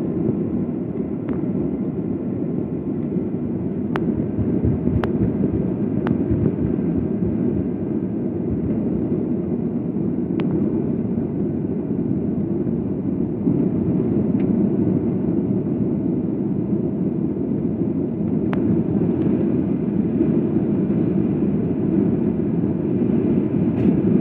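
Steady low rumble of a Boeing 737-800 heard from inside the cabin as it rolls along the runway after landing, with engine and landing-gear noise. A few faint sharp clicks cut through it now and then.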